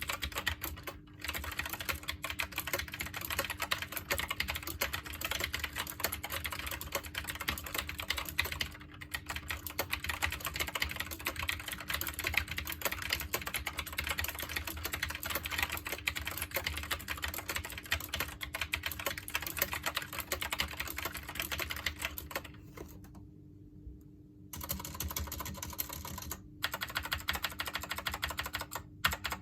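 SteelSeries Apex M650 keyboard being typed on in a fast, dense run of key clacks. The typing stops for about two seconds roughly two-thirds of the way through, with a few shorter breaks.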